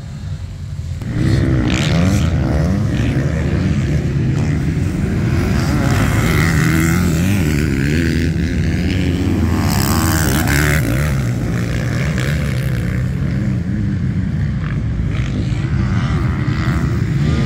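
Dirt bike engines running and revving, loud from about a second in, their pitch rising and falling as the throttle changes.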